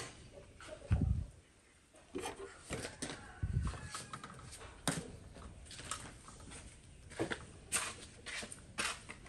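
Metal tongs clicking and scraping against a stainless steel wok as sausages are dropped in and turned, with scattered light clicks and knocks and two dull thumps, about a second in and again around three and a half seconds.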